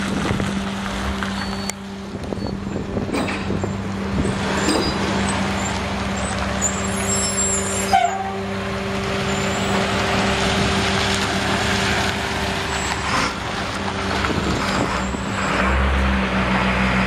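A 1998 Dodge Ram 1500's 5.2-litre V8 petrol engine running steadily as the pickup drives slowly past and away, with tyre noise on gravel. There is a single sharp click about halfway through, and the low rumble grows louder near the end.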